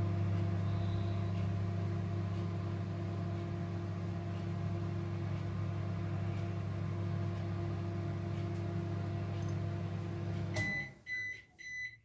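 IFB 30FRC2 microwave oven running with a steady low electrical hum. Near the end the hum cuts off as the timer runs out, and the oven gives several short, high beeps to signal the cycle is done.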